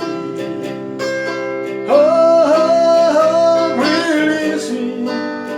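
A slow country-style ballad: steady guitar chords, with a voice singing one long, gliding sung line in the middle.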